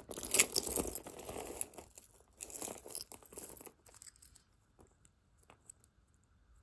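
Costume jewelry being handled and slid across a tabletop mat: a few seconds of rustling with light clinks of metal brooches and faux pearl strands, then quieter, with a few single soft clicks as pieces are set down.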